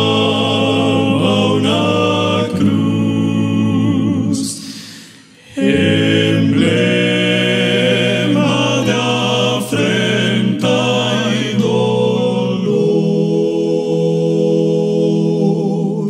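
Male vocal quartet singing a Spanish-language gospel hymn a cappella in close harmony, holding long chords, with a short break between phrases about five seconds in.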